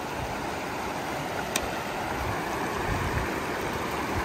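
Shallow river water running over stones, a steady rushing. A single small click about one and a half seconds in, and some low wind rumble on the microphone toward the end.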